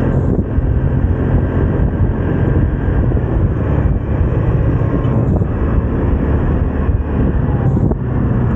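Vespa scooter riding along, its engine running steadily under a loud, low rumble of wind on the microphone.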